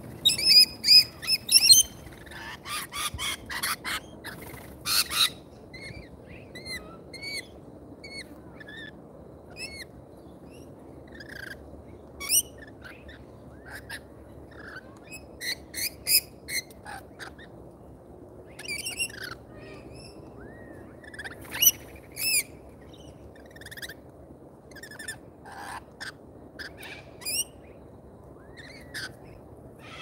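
Rainbow lorikeets and other birds calling at a seed feeder: a run of loud, shrill screeches in the first five seconds, then scattered short chirps and squawks.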